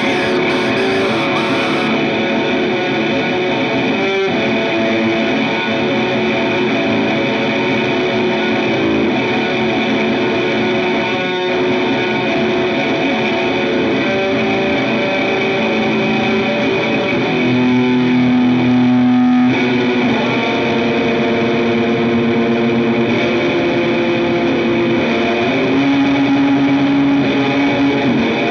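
Music with a distorted, effect-laden electric guitar holding long notes that change pitch every few seconds over a dense, steady backing.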